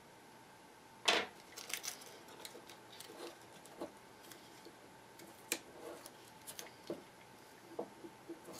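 Quiet scattered clicks and rustles of hands handling adhesive tape on a small calculator circuit board, the sharpest click about a second in.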